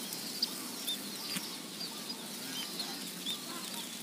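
Many small birds chirping: short, high, scattered calls, several a second, from a flock of emprit (pipit) birds over a steady outdoor background.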